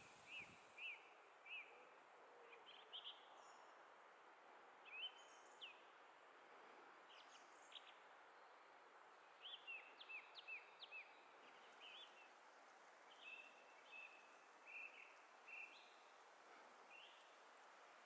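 Black woodpeckers calling faintly during an antagonistic encounter between two females: short, sharp calls in irregular clusters throughout, with a few longer level notes about three quarters of the way through.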